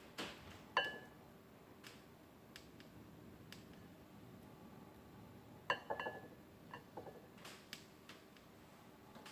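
Faint clinks of tableware. There is one ringing clink about a second in, a cluster of clinks around six seconds in, and light taps between them.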